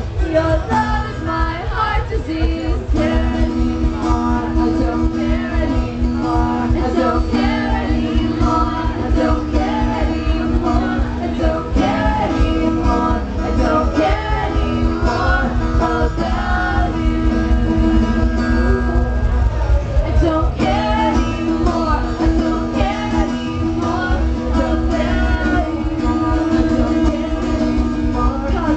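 Live rock band playing a song: electric guitars, bass and drums with a singer, loud and steady throughout.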